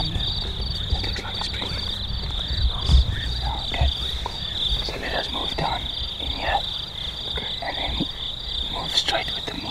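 Night-time chorus of insects: a steady high-pitched chirring with a fast pulsing trill just above it. Underneath, a low rumble of movement and handling in the first few seconds, with a thump about three seconds in.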